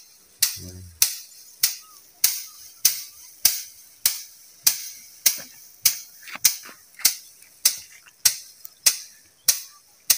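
A thin wooden stick whacking a heap of harvested rice sheaves to thresh the paddy: sharp cracks in a steady rhythm, about one every 0.6 seconds.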